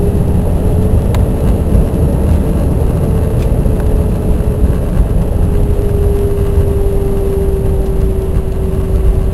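Loud, steady cabin noise of an Airbus A320 rolling along the runway after landing: a deep rumble from the engines and airframe, with a steady hum on top of it.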